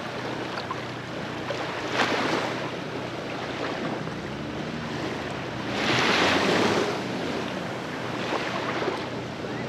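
Surf washing onto a beach, with wind on the microphone; a wave breaks about two seconds in and a bigger one about six seconds in.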